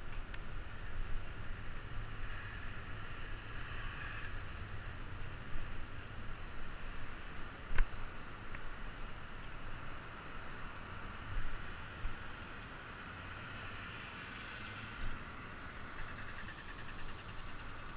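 Wind rumbling on a helmet-mounted camera's microphone during a bike ride, over the steady hiss of traffic on the road alongside. One sharp click about eight seconds in.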